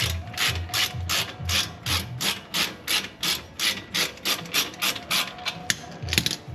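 Hand ratchet wrench being swung back and forth, a short rasping ratchet stroke about three times a second, with a few sharper clicks near the end.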